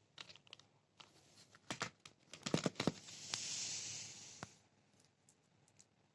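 Stationery packaging being handled: a cluster of sharp clicks and taps, then about a second and a half of rustling, tearing sound.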